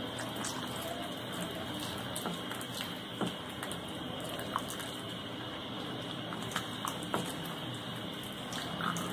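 Wooden spoon stirring a pan of simmering chicken corn soup, with liquid sloshing and occasional light clicks, as cornflour slurry is stirred in to thicken it.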